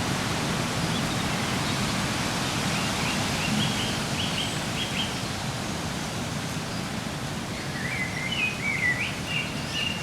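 Steady rush of wind through woodland, with a songbird singing short trilled phrases over it about three seconds in and again near the end.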